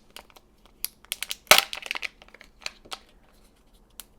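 Crinkling and tearing of Kinder Joy egg packaging, plastic and foil wrapper being pulled open: a run of sharp, irregular crackles, loudest about a second and a half in.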